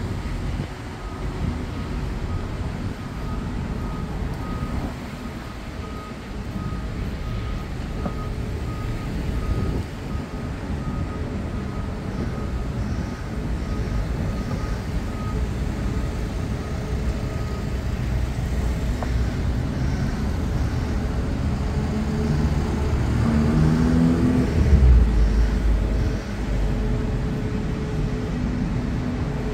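City street traffic with vehicles passing. Through the first half a short electronic beep repeats about twice a second. Near the end a heavy vehicle pulls away, its engine note rising into a loud low surge.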